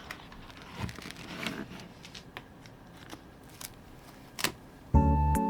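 Keycap set packaging being handled and opened: light rustling with scattered sharp clicks and ticks, the loudest click just before music starts near the end.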